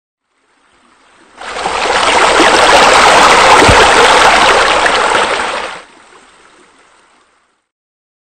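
A loud, steady rushing noise like running water lasts about four seconds, starting and stopping abruptly, with a faint lead-in and tail. A brief low thump comes about midway.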